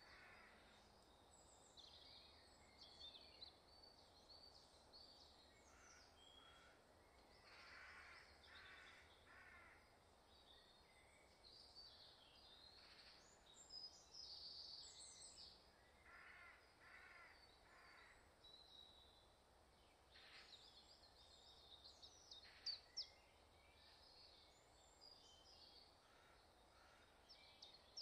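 Faint woodland birdsong at dawn: small birds sing high, thin phrases throughout, and several times a larger bird gives runs of three or four cawing calls.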